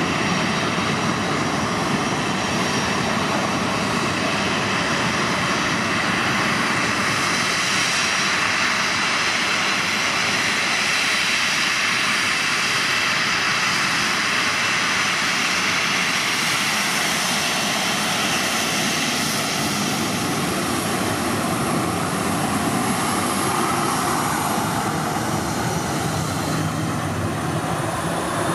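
A Boeing 737-800's CFM56-7B turbofan engines running at taxi power close by: a steady, loud hiss with several high whine tones over it. In the last few seconds a thin, very high whine rises slightly as the jet turns and passes.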